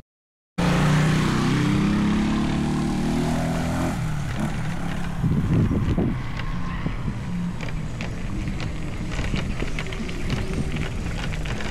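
Motor vehicle engine running close by, strongest for about three seconds after a brief dropout at the start, then giving way to rougher outdoor noise.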